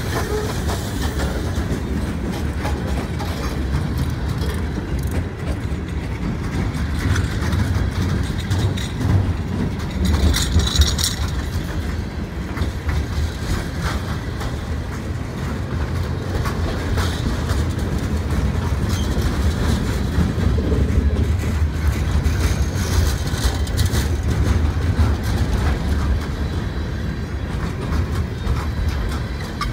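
Freight cars (boxcars and coil steel cars) rolling past close by: a steady low rumble of steel wheels on rail, with continual clicking clatter from the wheels. It grows briefly louder and harsher about ten seconds in.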